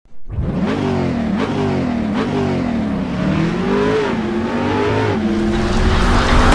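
Car engine revving: a few quick revs that rise and fall in pitch, then a longer climb about four seconds in, settling into a steadier held note near the end.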